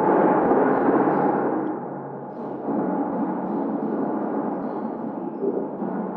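Motor-driven thunder sheet: a hanging metal sheet shaken by a winch cable, giving a continuous rolling, thunder-like rumble. It eases off about two seconds in, then swells again.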